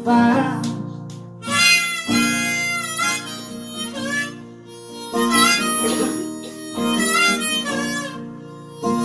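Harmonica solo over a strummed acoustic guitar, as an instrumental break in a folk-style song.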